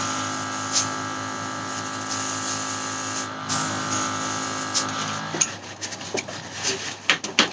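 Small airbrush compressor running with a steady hum. From about five and a half seconds in it is overlaid by irregular clicks and knocks of handling.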